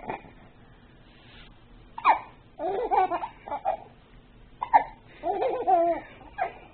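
Baby's short, sharp hiccups, with a young child's giggling laughter after them, twice: about two seconds in and again near five seconds.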